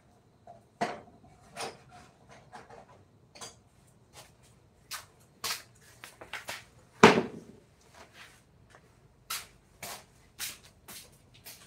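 Irregular sharp taps and clicks of hand tools working on wood, with one heavier knock about seven seconds in.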